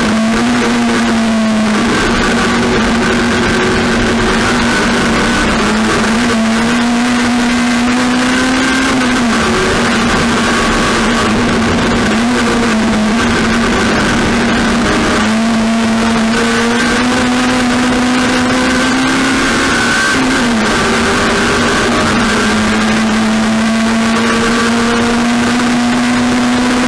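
Race car engine running hard at high revs, its pitch dipping briefly a few times (around 9, 12, 15 and 20 seconds in) and climbing back each time, as when lifting off or changing gear.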